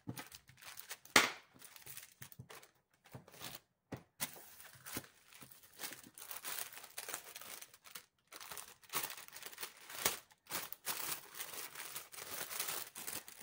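Clear plastic packaging bags crinkling and rustling as they are handled and folded, in irregular crackles, with one sharp loud crack about a second in.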